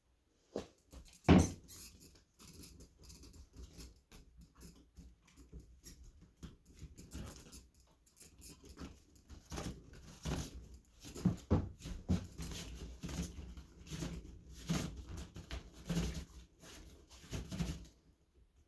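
Irregular soft taps and knocks, sparse at first with one sharper knock a second or so in, then coming more often, several a second, from about halfway through.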